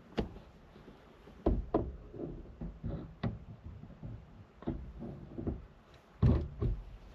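Irregular knocks and clicks, two of them heavier thuds, as steering-wheel and column parts are handled and fitted.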